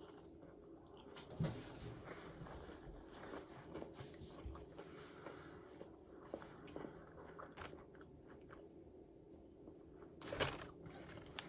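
Close-miked chewing of breaded fried pickles: soft crunching and mouth sounds, with a louder crunch near the end.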